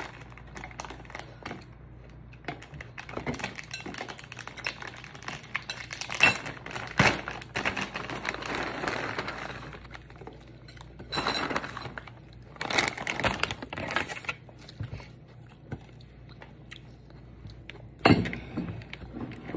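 Plastic food packets crinkling and rustling as they are handled and opened over a dinner plate, with scattered clicks and clinks of a utensil against the plate. One sharp knock near the end is the loudest sound.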